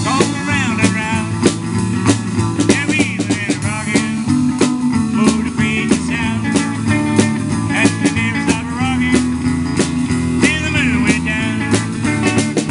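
Live electric guitar playing bent, sliding lead notes over a steady drum-kit beat and bass line: an instrumental break in a rock and roll song, with no singing.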